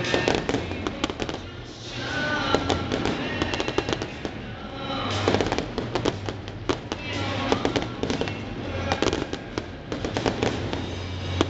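Aerial fireworks bursting into rapid crackling, coming in waves of dense crackles about every four to five seconds, with music from the stadium speakers underneath.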